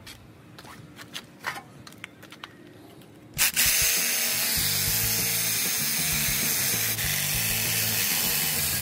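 DeWalt Atomic cordless drill with a steel bit boring out a rivet in a steel chassis rail: it starts suddenly about three seconds in and then runs steadily. A few faint clicks come before it, and background music plays underneath.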